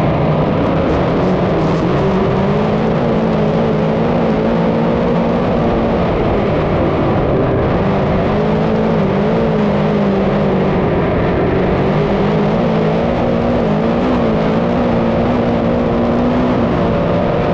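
Dirt modified race car engines running at low, fairly steady revs, their pitch wavering slightly up and down as the cars roll around the track.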